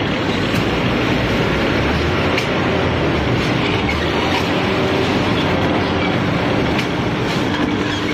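Veneer core composer running, its chain conveyors, sprockets and belts carrying core veneer: a steady mechanical running noise with a few sharp clicks.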